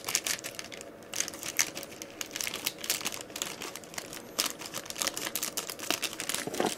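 Plastic anti-static bag around a new hard drive crinkling and crackling irregularly as it is handled and cut open with scissors.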